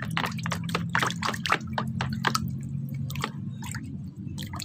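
A hand swishing and splashing in a plastic basin of soapy water while washing a toy figure: quick splashes and drips, busiest in the first couple of seconds, then sparser dripping as the toy is lifted out of the water near the end.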